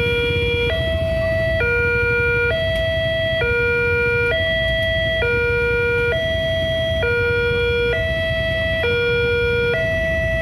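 Railway level-crossing warning alarm sounding a steady two-tone chime, alternating evenly between a higher and a lower note about once a second. It signals that a train is approaching.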